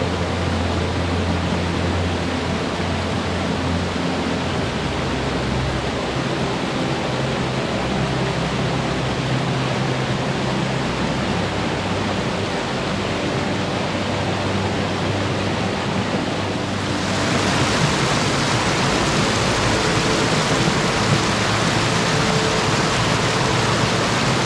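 Rushing stream water, a steady even hiss that becomes louder and brighter about two-thirds of the way through. Faint sustained low music notes sit underneath.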